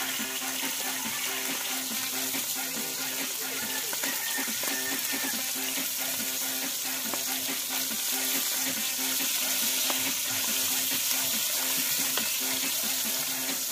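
Fish frying in hot oil in a wok: a steady sizzle.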